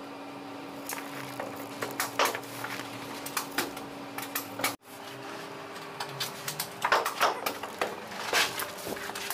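Carpet-laying work: irregular knocks, clicks and rustles of carpet and tools being handled, over a steady low hum. The sound cuts out sharply a little before halfway, then comes back with a hum at a slightly higher pitch and busier knocking.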